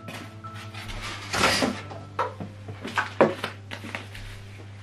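Handling of unboxed packaging on a table: a burst of rustling about a second in, then a few light knocks and clicks, over a low steady hum.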